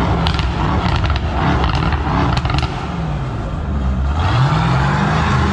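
Brabus B700 Mercedes E-Class's twin-turbo V8 being revved while standing still. The engine note rises and falls several times, with a string of sharp exhaust crackles and pops through the first half and another rev climbing about four seconds in, echoing in an underground car park.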